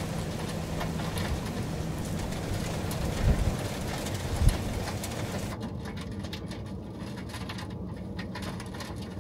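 Heavy rain pouring onto pavement and vehicles, a steady hiss dotted with fine ticks of drops, over the low hum of an idling engine, with two dull thumps near the middle. About five and a half seconds in the hiss drops away, leaving a duller, quieter patter of light taps.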